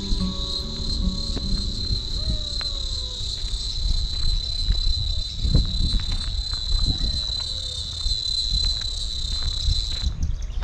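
Steady high-pitched insect buzz that holds unbroken and then cuts off suddenly near the end, over low irregular rumbles and thuds.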